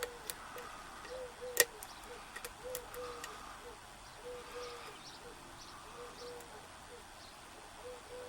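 Light metallic clicks and ticks of a lock pick working the pins of a Corbin 5-pin euro cylinder under tension, with one sharper click about one and a half seconds in. A faint train of short, low, hooting notes repeats in the background.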